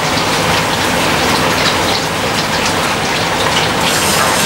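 Restaurant kitchen griddle sizzling: a steady hiss with scattered small crackles.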